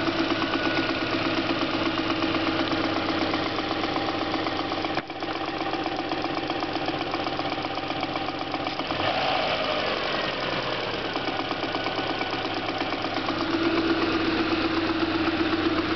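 Subaru EJ22 flat-four engine running with a fast, steady rattling knock, which the owner suspects is piston slap in an engine with 235,000 km on it.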